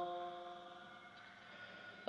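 The last held note of a man's chanted Arabic ziyarat recitation dying away over about a second, then near silence.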